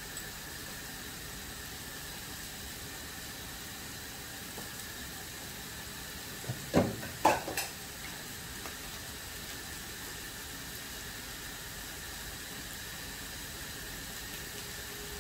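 Diced zucchini and onion frying in a nonstick pan over a gas burner, giving a steady gentle sizzle. A short cluster of knocks about seven seconds in is louder than the sizzle.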